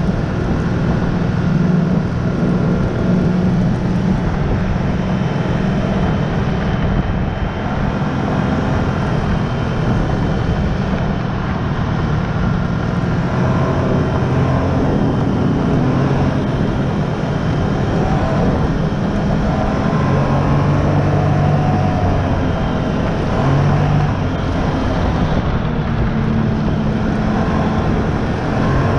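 Snowmobile engine running steadily as the machine is ridden along, a continuous drone whose pitch shifts a little now and then with the throttle.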